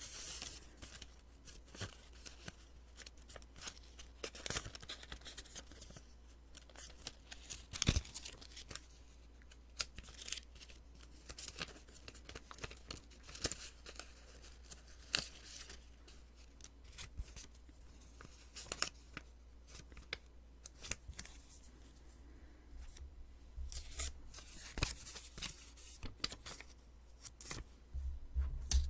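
Post-it sticky notes being peeled off: a run of short, crisp paper rips and crackles at irregular spacing, the loudest about eight seconds in and a busy cluster near the end.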